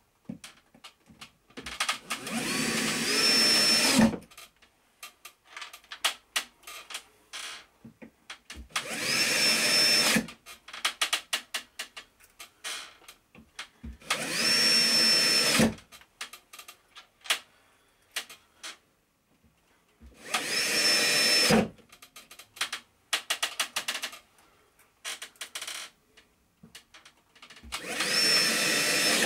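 Cordless drill-driver driving screws into a wooden cabinet to fix angle brackets. It runs in five separate bursts of about two seconds each, the motor whine rising in pitch as each burst starts. Short clicks and knocks of handling come between the bursts.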